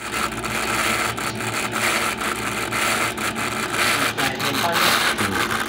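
Dell PP29L laptop's cooling fan running with a loud, rough scraping noise full of crackles over a faint steady hum: the sign of a worn, failing fan.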